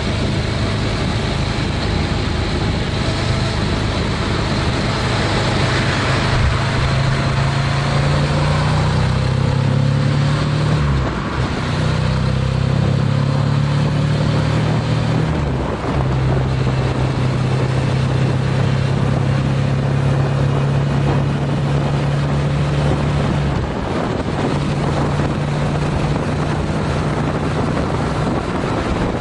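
Honda CTX700N motorcycle's parallel-twin engine pulling hard as the bike accelerates to highway speed, its note dropping out briefly three times as it shifts up. Wind rushes over the microphone throughout.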